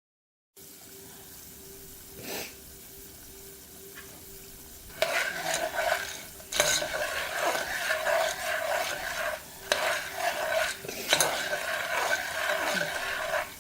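Kitchen cookware sounds: stirring and scraping in a cooking pot in long stretches from about five seconds in, with a few sharp knocks, over a steady faint hum.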